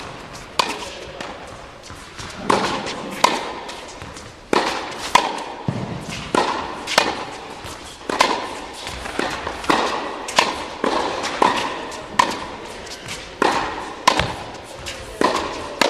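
Tennis balls struck by rackets and bouncing on an indoor hard court during a rally: a run of sharp pops about every half second to a second, each with an echo from the hall.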